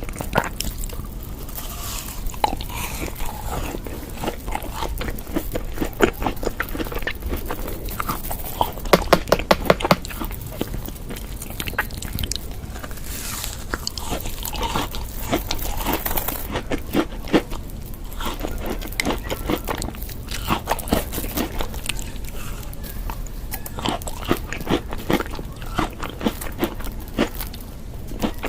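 Close-up eating sounds: a person biting and chewing food, with wet mouth clicks and crunching. The sounds come in quick irregular runs, busiest about nine to ten seconds in.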